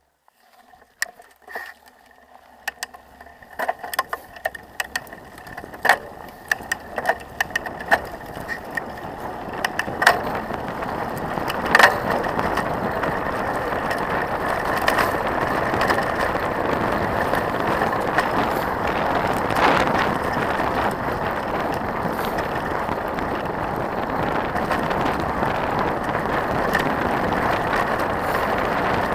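Trek 4900 mountain bike rolling down a gravel road, heard from a handlebar-mounted camera: scattered clicks and knocks at first, then a steady rushing noise of tyres on gravel and wind that builds over the first dozen seconds and holds.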